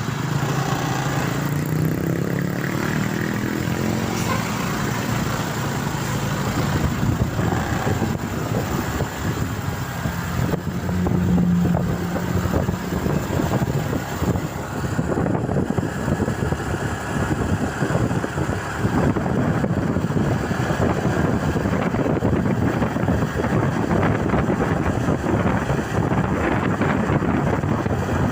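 Vehicle engines and road noise in moving traffic, steady throughout, with an engine's pitch gliding in the first few seconds and a brief low tone about eleven seconds in.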